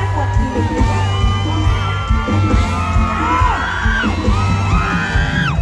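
Thai luk thung band music played loud through a stage sound system, with a steady heavy bass and wavering voices gliding up and down over it as the crowd whoops and cheers.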